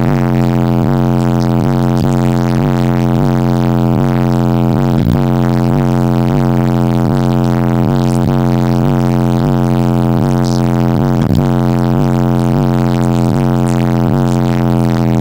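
Music played loud on a car stereo with a subwoofer, heard inside the cabin: a steady low drone that wobbles in pitch about three times a second.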